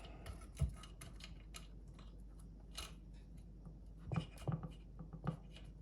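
Light metallic clicks and a few small knocks from handling a chainsaw's chain and guide bar while it is being fitted onto the saw, with a sharper knock about half a second in and a cluster of knocks near the end.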